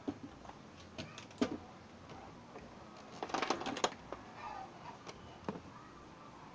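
Scattered plastic clicks and knocks from a digital multimeter being handled and set down on a TV's back cover, with a quick run of clicks a little past halfway, the loudest part.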